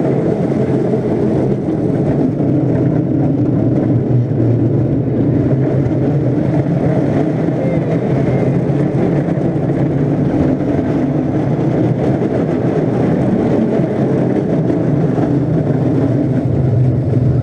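Small roller coaster train running along its steel track, a steady loud rumble of wheels and running gear that holds without a break.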